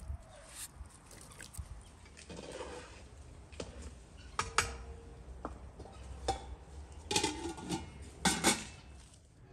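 A long metal ladle stirring rice in boiling water in a large aluminium pot, clinking and scraping against the pot's rim and sides: several sharp clinks, the loudest about halfway through and near the end.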